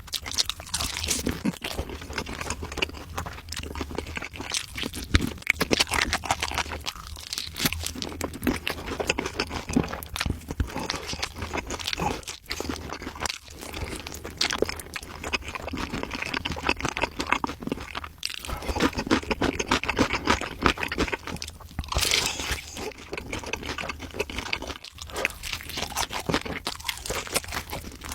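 Crunchy food being chewed: continuous, irregular crisp crunching bites.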